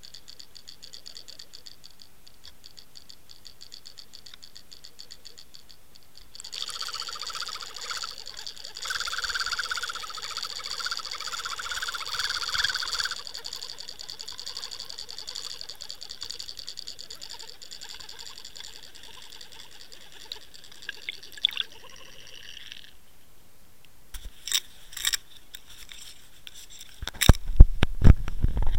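Underwater sound from a camera in its housing: faint regular ticking, then a steady mechanical whirring with a high whine for about sixteen seconds. A few sharp clicks follow, and near the end loud knocks and bumps as the camera is handled and lifted out of the water.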